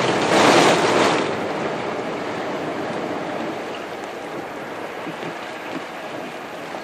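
Car driving through deep floodwater: a loud surge of water splashing against the car in the first second, then a steady rush of tyres ploughing through water that slowly fades.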